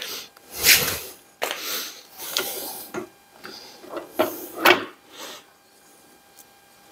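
Ford Model T rear axle shaft and differential gear scraping and clunking metal on metal against the axle housing as they are pulled out, a run of scrapes and knocks for about five seconds.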